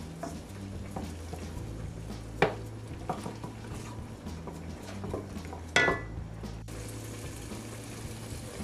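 Onion, garlic and bell peppers sautéing in melted butter in a pot with a soft sizzle, a spoon stirring them and clinking sharply against the pot twice, about two and a half and six seconds in.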